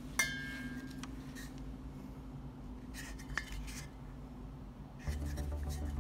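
Small hard objects being handled: a sharp clink with a short ringing tail, then a few faint clicks and taps, and a low hum that comes in near the end.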